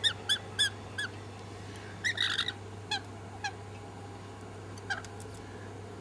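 Wild birds calling close by: a run of short, sharp chirps, a harsher squawk about two seconds in, then a few more spaced chirps, over a steady low hum.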